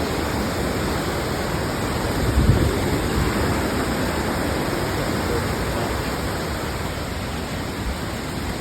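Steady rush of a waterfall in flood, with a brief low rumble about two and a half seconds in.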